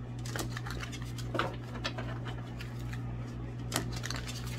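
A steady low hum with a few scattered light clicks and taps, the clearest about a second and a half in and again near the end.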